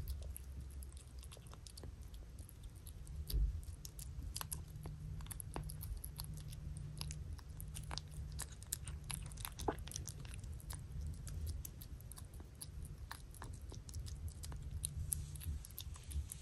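A kitten eating soft wet cat food: a steady run of quick, wet smacking and chewing clicks, with one dull low bump about three seconds in.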